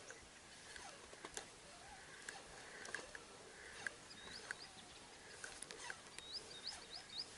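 Quiet outdoor ambience with faint bird chirps: short quick rising notes repeated in runs of three or four, about four seconds in and again near the end, among scattered small clicks and ticks.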